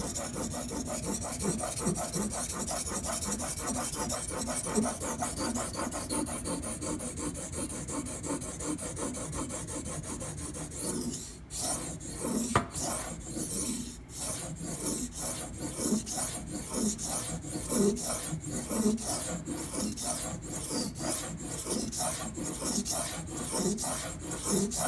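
Steel steak-knife edge being ground back and forth on a sharpening stone, scraping, while the second side of the bevel is worked toward a burr. About halfway through, the fast continuous scraping turns into slower, separate strokes at about one and a half a second.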